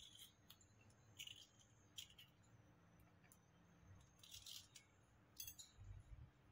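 A knife slicing through a peeled raw green mango, heard as a few faint, short cuts and scrapes, with slices tapping onto a ceramic plate.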